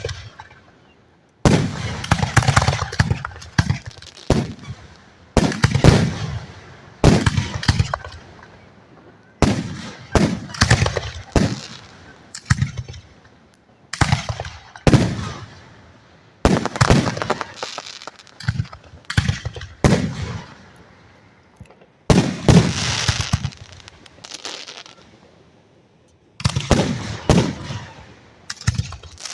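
Aerial firework shells bursting close overhead: about twenty sharp bangs at irregular intervals, some in quick pairs, each trailing off in a rolling rumble.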